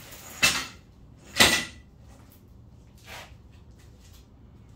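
Hard objects knocked and set down on a work surface: two loud clacks about a second apart, then a fainter one around three seconds in.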